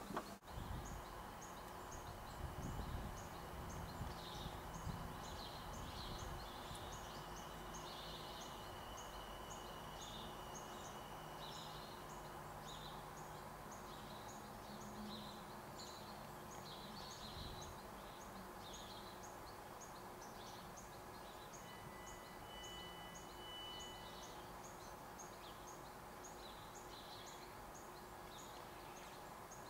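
Quiet early-morning street ambience: small birds chirping over and over in quick short notes, over a low steady hum.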